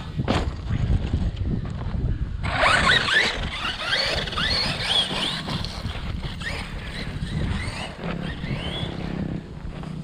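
Electric RC truck driving hard over rough ground: its motor whines up and down in pitch in quick sweeps as the throttle is worked, most busily in the first half, over a steady rumble of tyres and chassis on the dirt.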